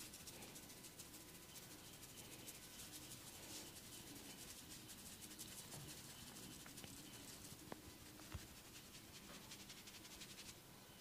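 Faint, rapid scratching and rubbing of a barber's hands during a massage, a dense run of many quick strokes.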